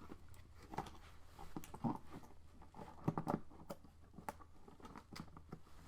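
Faint, irregular small clicks and taps as a laptop's logic board and its cables are handled and fitted back into the case.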